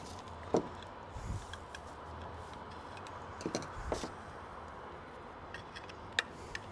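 A few scattered light clicks and taps as small metal carburetor parts are handled, over a faint steady room background.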